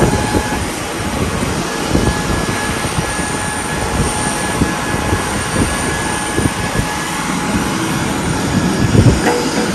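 Steady aircraft turbine noise on a flight line, a constant rush with a faint high whine, with scattered knocks and clanks of aluminium loading ramps being set in place, the loudest knocks near the end.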